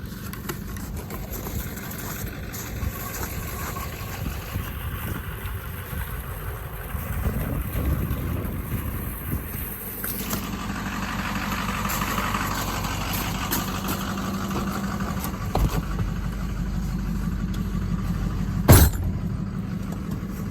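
Pickup truck engine running steadily, swelling a little partway through, with one sharp knock about two seconds before the end.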